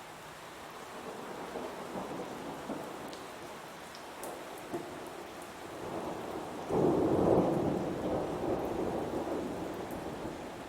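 Heavy rain falling steadily under thunder: a low rumble builds from about a second in, breaks into a loud peal about two-thirds through, then slowly dies away.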